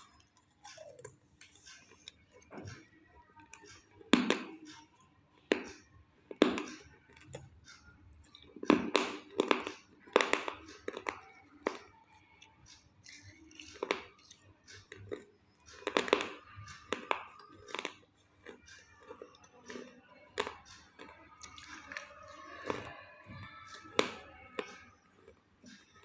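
Half-roasted red clay being bitten and chewed: sharp, crunchy cracks every second or two, with quieter chewing between them.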